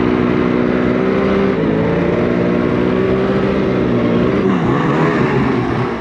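Snowmobile engine running while riding, holding a steady pitch that shifts about one and a half seconds in and rises and falls near the end.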